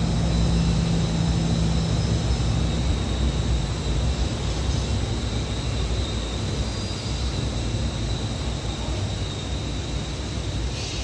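Glass tempering furnace line running: a steady, dense machine rumble with a thin high whine over it and a low hum that fades out a few seconds in.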